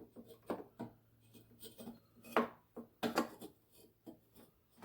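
Scattered light knocks, taps and rubbing of a carburetor being wiggled and manoeuvred while it is pulled out of a 1985 Honda ATC 200X. The sharpest knocks come about two and three seconds in.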